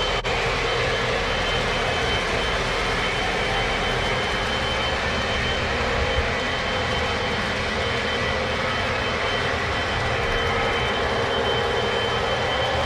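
Several Lionel O gauge model trains running on the layout at once: a steady rolling rumble of wheels and motors on the track, with a faint steady high tone.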